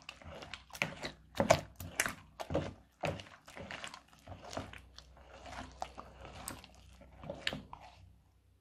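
Silicone spatula stirring and folding thick, bead-filled crunchy slime in a plastic bowl: a run of wet squelching, crunching strokes, roughly two a second, that stops shortly before the end.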